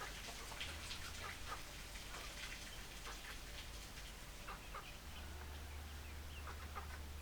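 Hens clucking softly, with scattered short clucks and a steady low hum underneath.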